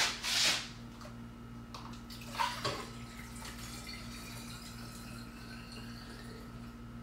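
Liquid poured from a glass bowl through a funnel into a glass bottle, splashing briefly in the first half-second. About two and a half seconds in come a couple of light knocks, then only a faint steady hum.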